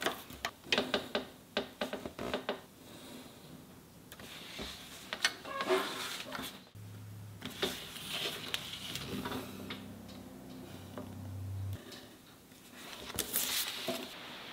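Pencil drafting on paper: quick clicks and taps of the pencil and plastic template against the drawing board, then scratchy pencil strokes. A steady low hum comes in about seven seconds in and stops about five seconds later.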